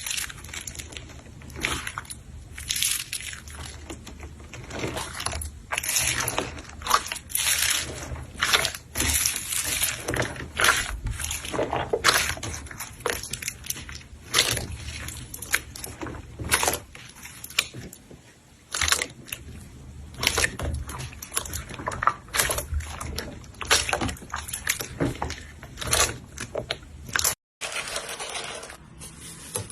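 Slime being squeezed and kneaded by hand: an irregular run of short wet, crackly noises, several a second, broken off briefly near the end.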